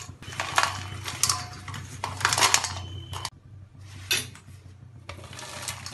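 Crispy deep-fried corn kernels tipped off tissue paper into a stainless steel bowl, rattling and clattering against the steel in a run of bursts, then a few fainter ones. The hard, dry rattle shows how crisp the kernels are.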